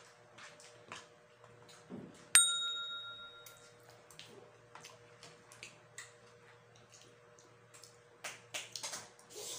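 A single bright bell ding about two seconds in, ringing out and fading over about a second: an edited-in sound effect marking the count of balut eaten. Around it, faint mouth sounds of eating: small smacks and slurps.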